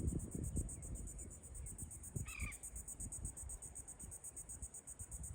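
High-pitched insect chirring in rapid, even pulses, over an uneven low rumble of wind on the microphone. About two seconds in, a single short bird call.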